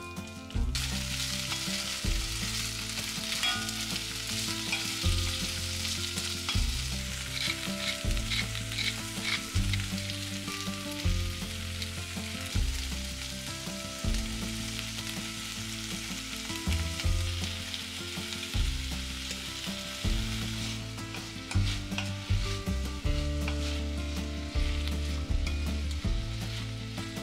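Onions and green beans sizzling in hot oil in an enamelled cast-iron pot while being stir-fried, a wooden spoon scraping and stirring through them with small clicks and knocks. The sizzle is quieter in the last few seconds.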